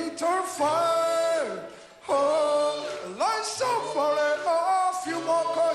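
A singing voice, long held notes that slide up and down between pitches, with no clear instrument behind it.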